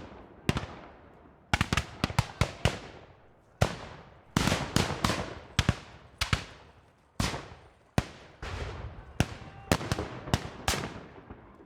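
War-zone ambience of gunfire: sharp shots cracking irregularly, singly and in quick runs of several, each trailing off in a long echo.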